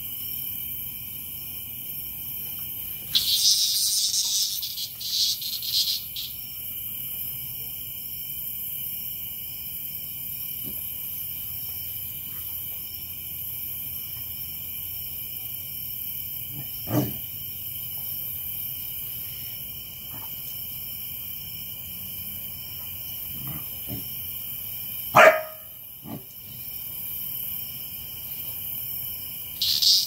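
A cicada on the ground buzzing in several loud, broken bursts a few seconds in and once more at the very end, while a puppy barks twice, a short bark about halfway through and a louder one later. A steady high chorus of night insects runs underneath.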